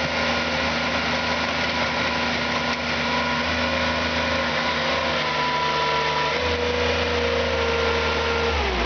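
Mini skid steer loader's engine running steadily. Its tones step up slightly about five and six and a half seconds in, then drop away at the very end.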